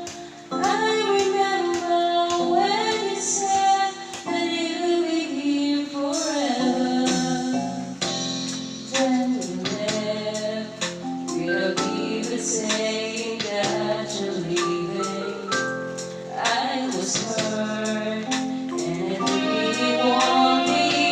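A woman singing a ballad over a backing track, with many sharp hammer blows knocking through the song.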